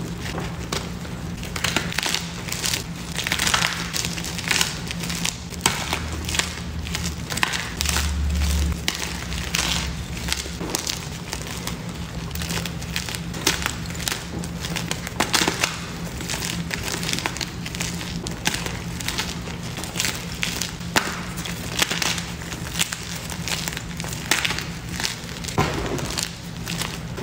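Gym chalk blocks and reformed chalk chunks crushed between the hands: a continuous run of uneven dry crunches and crumbling cracks as the blocks break apart into powder.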